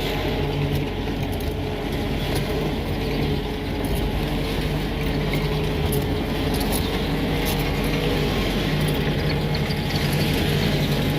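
Vehicle engine running steadily while hauling a heavy log, with faint clicks and rattles over it.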